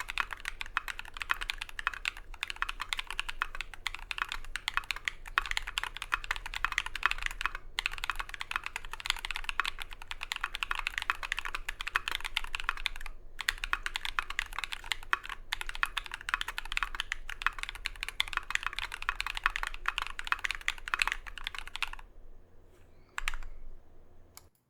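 Fast, continuous typing on a Leaf60 HHKB-layout mechanical keyboard with lubed Holy Mint Yok tactile switches on a brass plate and MT3 keycaps. The key presses break off briefly a few times and stop about 22 seconds in, followed by one short last clatter of keys.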